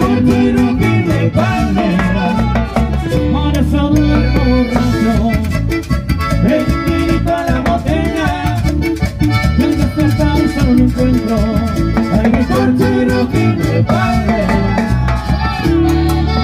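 Live band playing Latin dance music: a button accordion carries the melody over electric bass, strummed acoustic guitar and timbales.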